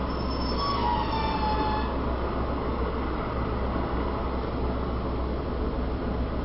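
Steady city street traffic noise with a constant low hum. A high squeal falls in pitch during the first two seconds.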